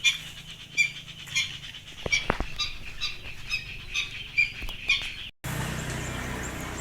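Nestling birds in a nest cheeping, short high chirps about twice a second, until they stop abruptly about five seconds in. A steady outdoor hiss follows.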